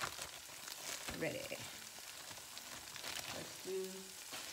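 Oil sizzling steadily in a hot cast-iron skillet.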